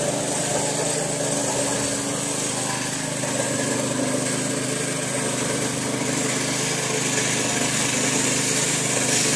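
Small petrol engine of a railway track-maintenance machine running steadily.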